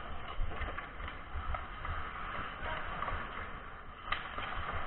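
Ice hockey play: skate blades scraping and carving the ice in a steady hiss, with a single sharp clack of stick or puck about four seconds in. Uneven low rumbling sits underneath.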